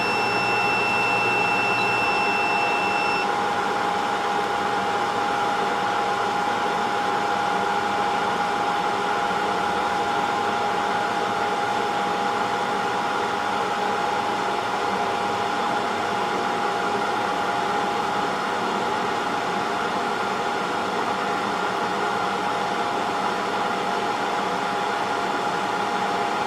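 Hot air rework station blowing steadily, a constant air hiss with a steady hum tone in it. A thin high tone sounds for about the first three seconds.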